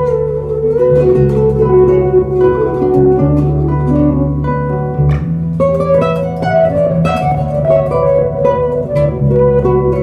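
Classical guitar played fingerstyle, nylon strings plucked: a melody of picked notes over held bass notes that change every second or two.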